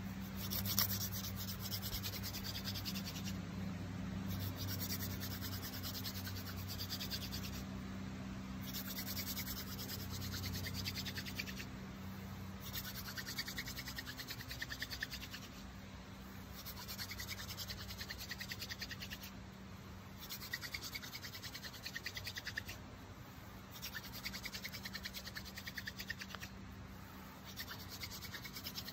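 Hand-drill friction fire: palms rubbing a wooden spindle rapidly back and forth, its tip grinding against a wooden hearth board with a scratchy, rasping hiss. The drilling comes in runs of two to three seconds broken by short pauses.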